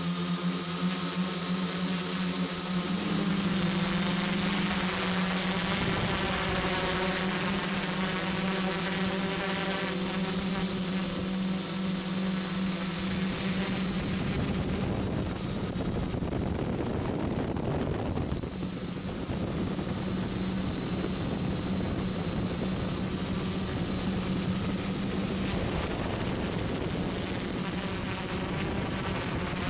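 FPV model aircraft's motors and propellers running steadily, heard from its onboard camera: a steady hum with a thin high whine, dipping briefly about 18 seconds in.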